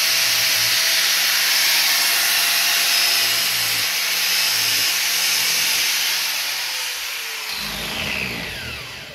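Angle grinder running with its disc grinding the cutters of a 3/4-pitch harvester saw chain. About seven seconds in it is switched off and winds down with a falling whine.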